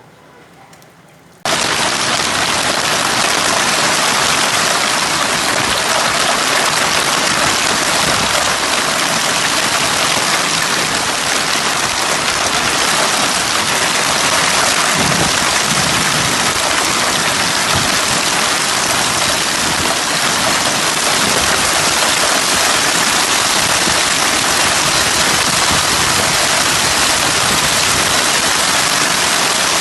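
Heavy rain pouring down as a steady, loud hiss, cutting in abruptly about a second and a half in.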